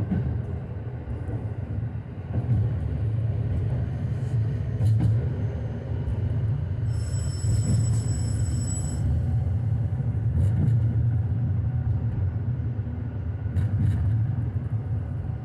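Inside a KiHa 125 diesel railcar under way: a steady low drone of engine and wheels on the rails, with occasional clicks. A thin high whine sounds for about two seconds midway.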